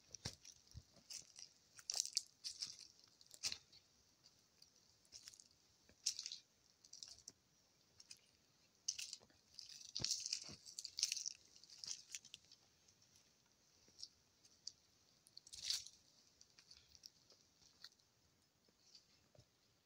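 Faint, irregular crunching and rustling: scattered soft crackles with quiet gaps between them, and a denser cluster about ten seconds in.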